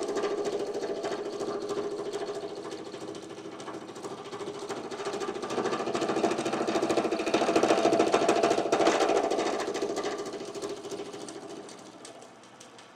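End mill on a milling machine cutting an aluminum axle cap to a rounded shape, with a fast, even rattle. It swells to its loudest past the middle, then dies away near the end as the cut eases off.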